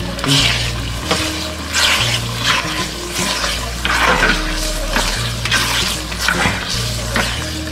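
A metal ladle stirs and scrapes mutton varakari (dry mutton fry) in a clay pot, a scrape every second or so, with the food sizzling as it cooks down almost dry.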